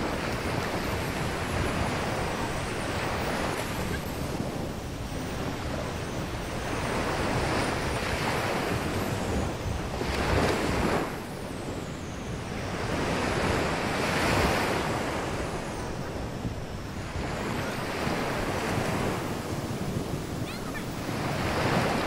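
Ocean surf breaking on the shore, a steady rush that swells and ebbs every few seconds as waves come in, with wind buffeting the microphone.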